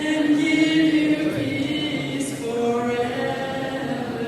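Several voices singing together in a slow hymn or sung response, holding long notes that move to new ones about two-thirds of the way through.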